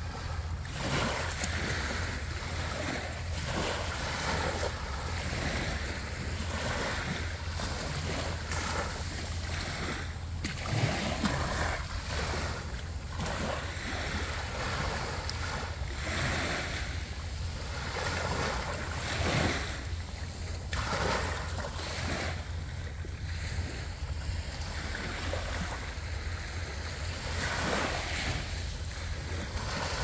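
Small sea waves breaking and washing up over sand at the shoreline, in slow surges, with wind on the microphone as a steady low rumble.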